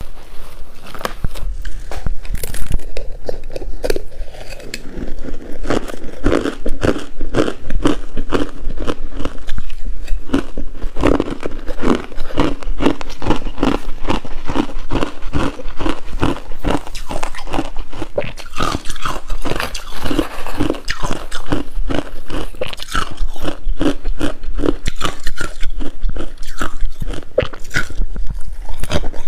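Coarse-grained crunchy ice being bitten and chewed close to the microphone: a rapid, continuous run of crisp crunches, several a second.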